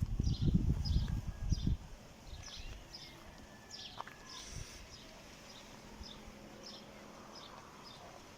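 Small birds chirping, short high chirps repeating about once or twice a second, with a low rumble during the first couple of seconds.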